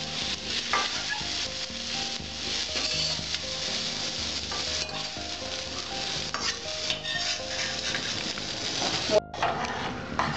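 Half-fried beans and carrots sizzling in oil in a metal kadai. A steel spoon scrapes and clinks against the pan as they are scooped out.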